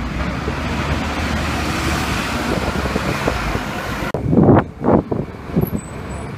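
Double-decker bus driving away with street traffic noise, a broad rushing that swells about two seconds in. About four seconds in the sound turns suddenly muffled, with two loud low bumps from the phone being handled.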